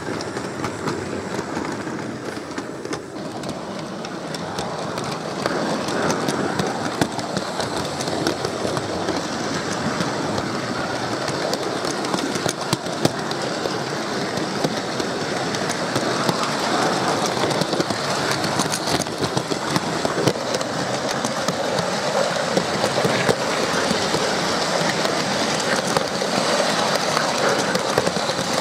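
Hornby OO-gauge model train running on sectional track close by. The wheels and motor make a steady rumble with fine, rapid clicks from the rail joints, and it grows gradually louder over the first half.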